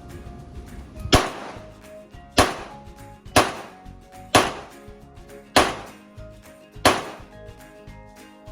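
Six handgun shots fired at an irregular pace of about one a second, each a sharp crack with a short echo, over background music.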